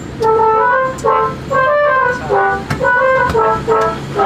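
A bus 'telolet' horn, a set of electric air-horn trumpets, playing a quick melody of short chord-like notes, about three notes a second, over a steady low hum.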